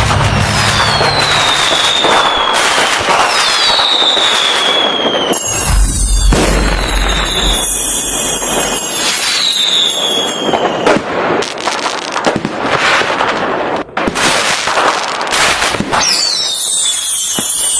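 Fireworks going off: whistling shells with falling pitch, a deep boom about a third of the way in, then a long stretch of dense crackling bursts before more whistles near the end.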